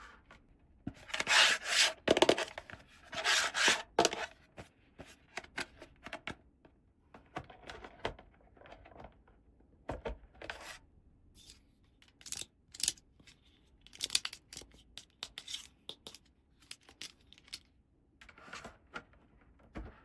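Small plastic toy pieces and packaging being handled: scattered rubbing and rustling with sharp little clicks and taps, loudest about one to four seconds in.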